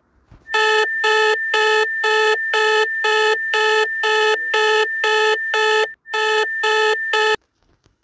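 Custom-made Honduras emergency alert (EAS) alarm tone: a steady high tone under a buzzy pulsing tone that beeps about twice a second, then cuts off abruptly near the end.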